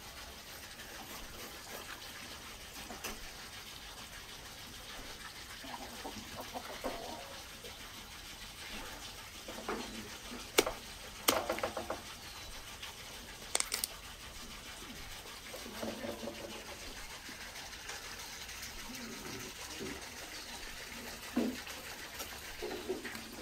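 A heavy knife cutting and prying through the crisp roasted skin and ribs of a whole lamb stuffed with pilaf, with a few sharp cracks and snaps, most of them a little before the middle. A steady rushing hiss and faint calls sit in the background.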